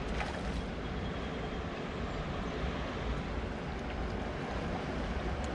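Steady rushing rumble of water churning in the tailrace below a hydroelectric dam.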